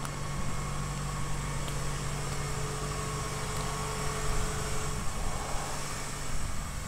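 1989 Mazda B2600's 2.6-litre fuel-injected four-cylinder engine idling steadily.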